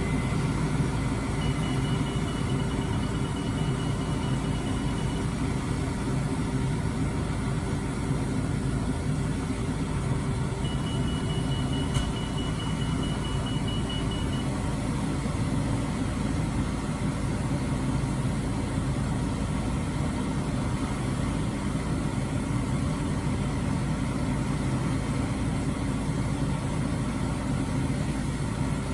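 Diesel engine of a truck-mounted boom crane truck running steadily, keeping the crane's hydraulics powered. A faint, high, rapid beeping comes in twice, and a single click sounds about midway.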